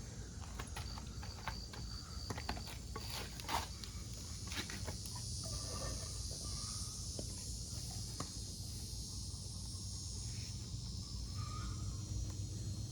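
Insects chirping steadily, with scattered light clicks and knocks in the first few seconds.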